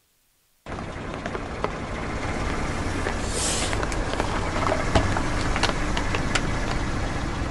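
After a moment of silence, a car's engine and tyre rolling slowly over a row of plastic toy fruits, with scattered cracks and snaps as the plastic is crushed, a brief hiss a little past three seconds in, and the sharpest snap about five seconds in.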